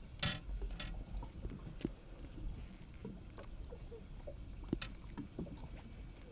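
Low steady rumble of wind and water on an open boat deck, with scattered clicks and knocks from a redfish being handled and unhooked. There is a short rustle just after the start and a sharp click near the five-second mark.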